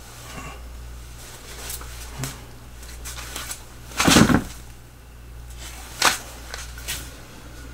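Scattered light clicks and knocks from a practice pistol being handled and from feet shifting through a pivot. The loudest is a short thump about four seconds in, followed by a sharp click about two seconds later.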